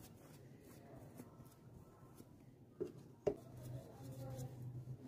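Faint scratchy rubbing of a glue brush spreading adhesive over a roughened shoe heel, with two sharp taps about three seconds in.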